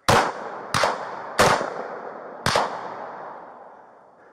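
Four gunshots from a police officer's firearm, fired at an armed man, at uneven intervals over about two and a half seconds, each followed by a long echo.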